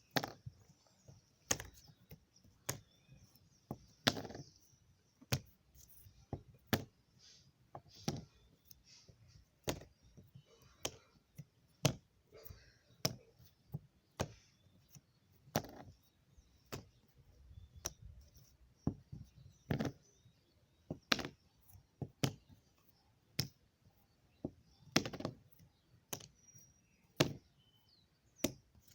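Tower of Hanoi pieces being lifted and set down on the pegs one at a time, giving short, sharp knocks at irregular intervals of about one a second as the five-piece puzzle is solved.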